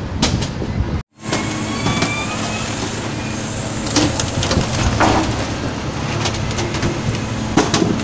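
Rear-loading garbage truck's engine running steadily at the kerb, with a few sharp knocks and clanks as a wire litter basket is handled at the hopper. The sound cuts out for a moment about a second in.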